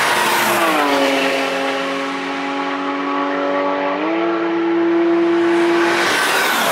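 Cars passing at speed on a race track. One goes by close at the start, its engine note dropping as it passes, then holding a steady tone and jumping up in pitch about four seconds in as it pulls away. Near the end another car approaches loudly.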